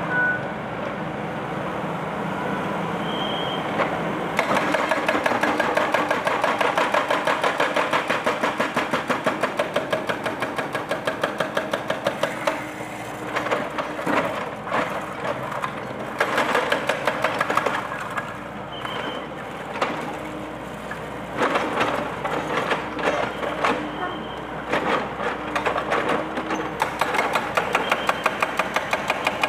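Excavator-mounted hydraulic breaker hammering at a concrete monument, in several bursts of rapid, regular blows. Under them runs the steady sound of the excavator's engine.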